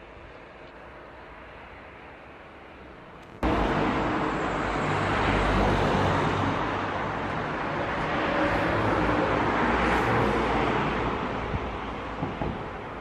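Road traffic passing close by. It cuts in suddenly about three seconds in over a faint background, with engine and tyre noise that swells twice as vehicles go past, then eases off near the end.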